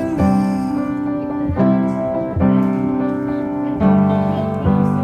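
Background music: an instrumental break in a soft pop song, with piano chords struck and held, changing about once a second.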